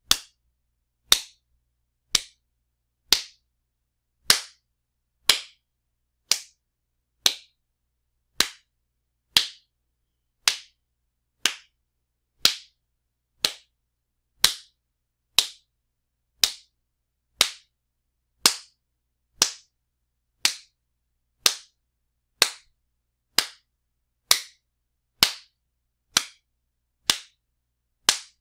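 Loud wet slaps, one sharp smack about once a second, evenly spaced, each cut short with silence between.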